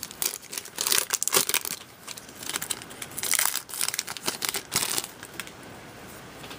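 Foil wrapper of a football trading-card pack being torn open and crinkled by hand, a dense rustling crackle that dies away about five seconds in.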